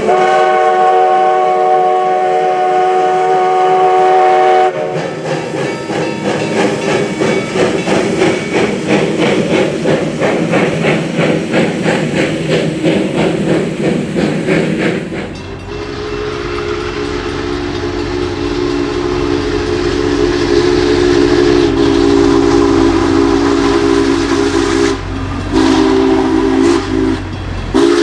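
A Black Hills Central Railroad steam locomotive blows a long chime whistle blast, then chuffs in an even rhythm as it pulls its coaches past. After a cut about fifteen seconds in, Union Pacific 4014 Big Boy's lower-pitched chime whistle sounds in long blasts with two short breaks near the end, over the low rumble of the train.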